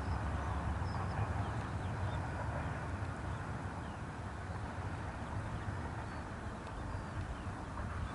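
Distant Airbus A320 jet engines running, a steady rumbling hiss that fades slowly. A few faint bird chirps sound over it.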